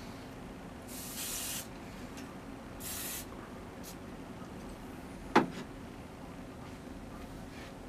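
Aerosol deodorant can sprayed in two short hisses, the first a little longer than the second. A single sharp knock comes about five and a half seconds in and is the loudest sound.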